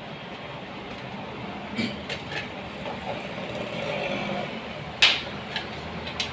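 A few sharp clicks and taps over a steady background hum. There are several light ones about two seconds in and a louder one about five seconds in.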